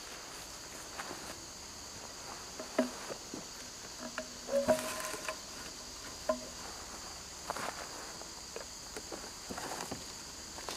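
Steady high-pitched insect chorus, like crickets, with scattered light crackles and steps in dry brush and leaves.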